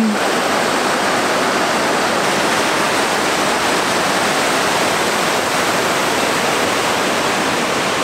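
Mountain river rushing through a narrow rocky channel, white water tumbling over boulders in a steady, even rush of water noise.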